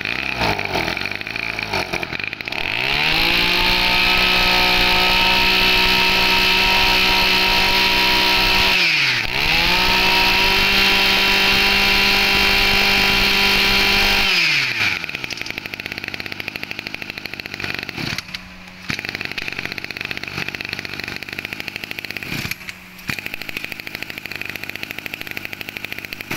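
Kioritz (Echo) 24cc two-stroke brush cutter engine idling, then revved to full throttle twice, each time held steady for about six seconds with a short drop between. It falls back to idle about fifteen seconds in.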